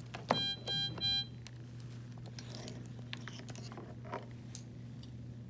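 Portable Medtronic capnography monitor giving three short beeps in quick succession about half a second in, as its cannula line and pulse-oximeter probe are connected.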